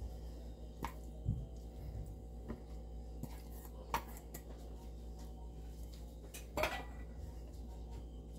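Kitchenware handling: a handful of light clicks and knocks as a bowl and hands touch a clay tagine dish while grated zucchini is spread over the chicken, the loudest knock about two-thirds through, over a low steady hum.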